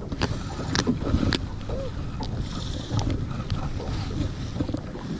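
Wind rumbling on an action camera's microphone on a small john boat, with a few sharp clicks in the first second and a half while a hook is worked out of a small fish by hand.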